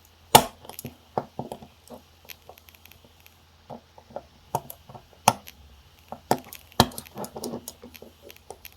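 Small metal hand tools clicking and tapping against a tiny alarm clock movement while its conical pins are worked out: irregular sharp clicks and knocks, the loudest about half a second in.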